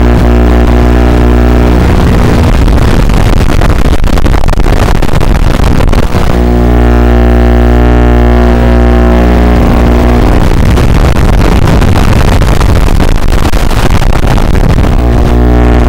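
Loud static from an analog FPV video link's audio channel: a steady electrical buzz of fixed hum tones that twice gives way to several seconds of rushing hiss.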